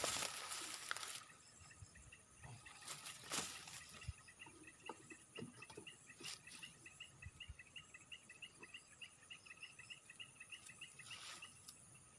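An animal, most likely a bird, calling a long, fast run of short high chirps. Brief bursts of rustling come at the start, about three seconds in and near the end. A faint steady high insect drone runs behind.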